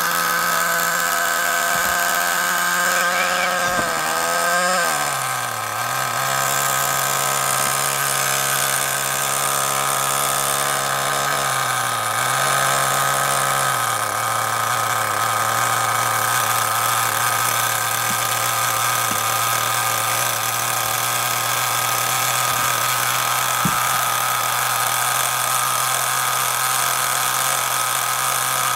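Nitro RC car's small two-stroke glow engine running on its own with a high, steady buzzing whine. About four seconds in its pitch sags and settles lower, it dips briefly once more, then holds a steady idle: a cold engine just brought to life with a glow starter.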